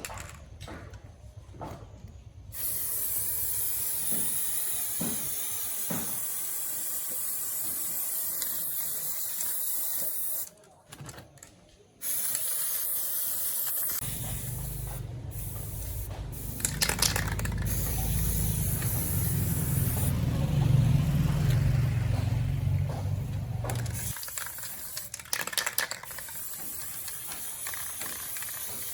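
A spray hissing in long steady stretches, breaking off for about a second and a half near the ten-second mark. A low rumble runs under it through the middle for about ten seconds, and a few clicks come near the start.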